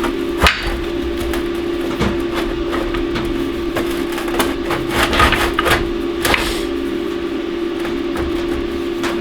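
Large steel ball bearings knocking and clunking as they are pushed around inside a heavy bearing race: irregular metal knocks over a steady hum.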